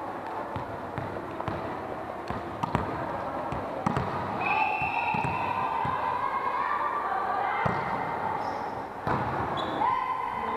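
Volleyball play in an echoing sports hall: sharp ball strikes and thuds on the wooden court, with drawn-out calls from players from about four seconds in.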